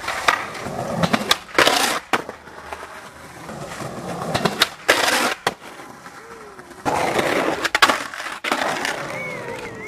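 Skateboard wheels rolling on concrete, broken by several sharp clacks of the board popping and landing across a few tricks.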